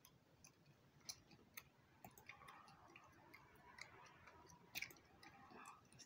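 Faint, irregular computer mouse clicks, about a dozen scattered across a near-silent room.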